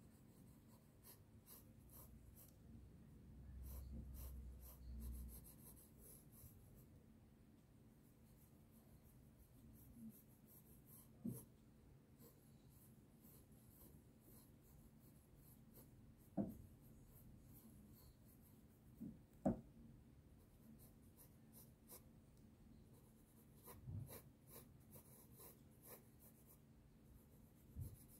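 Graphite pencil scratching on sketchbook paper in runs of quick short strokes while shading a drawing, with a few short knocks in between.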